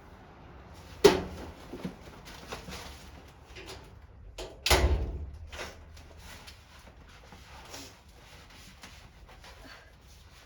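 A series of knocks and clatters, like things being handled or a door or drawer being moved, with a sharp knock about a second in and the loudest clatter about halfway through.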